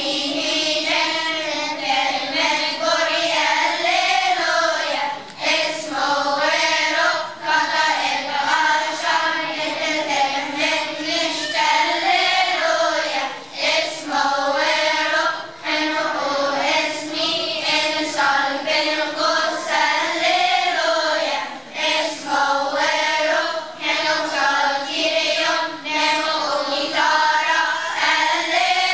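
A children's choir of boys and girls singing together, with brief pauses between sung phrases.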